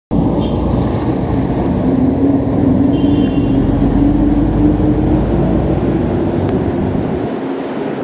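Road traffic with a heavy diesel truck passing close by, its engine a steady drone over the rumble of the road. The noise eases off about seven seconds in.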